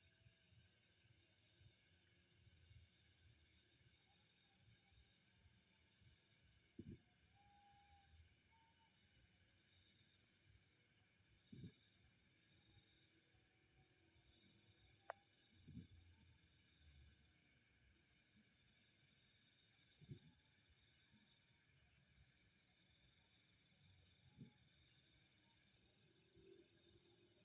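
Faint night insects: crickets chirping in short pulsed trills every second or two over a steady high-pitched insect drone, with a faster high pulsing joining for most of the stretch.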